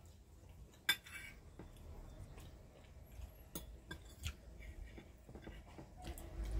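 Cutlery clinking against plates while eating: a few scattered, sharp clinks, the sharpest about a second in.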